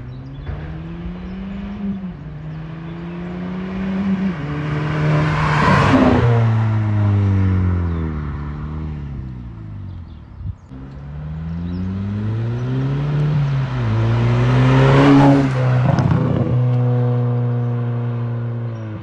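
Volkswagen Scirocco R's turbocharged four-cylinder with a full straight-through exhaust, accelerating hard past twice: each time the engine note climbs, steps down at a gear change, swells to a loud peak as the car goes by, then falls away. Near the end the engine runs at a steadier lower note.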